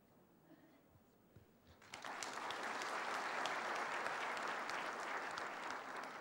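Audience applause in a hall, starting suddenly about two seconds in and tapering off near the end.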